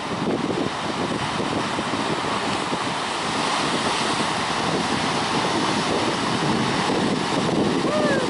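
Heavy ocean surf breaking and churning among rocks, a steady wash of water noise with wind buffeting the microphone. A short, faint call rises and falls near the end.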